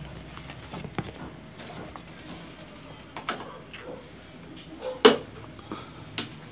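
A few light clicks and knocks, with one louder knock about five seconds in, over a faint steady room background.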